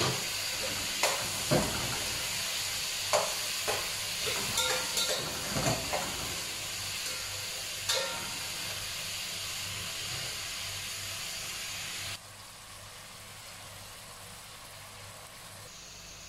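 Steady hiss of a pot of mung beans boiling hard on a gas burner, with scattered knocks of a spoon against the pot while it is stirred. The hiss drops off abruptly about twelve seconds in.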